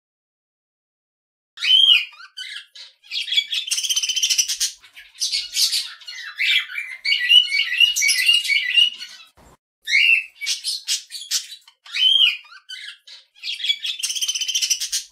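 Birds squawking and chirping: harsh, scratchy calls mixed with short rising chirps, starting about a second and a half in and going on almost without a break.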